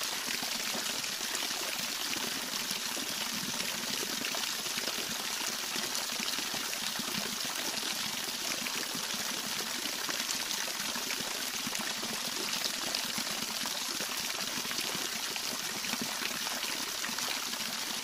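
Waterfall and shallow cascades pouring over rocks: a steady, even hiss of falling water.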